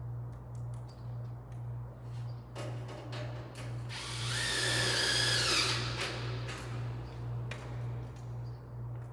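Cordless screw gun whining as it drives a pan-head screw into light-gauge steel framing. One run of about two seconds, roughly four seconds in, with the pitch dropping as the screw seats. Scattered clicks and handling knocks come before and after it.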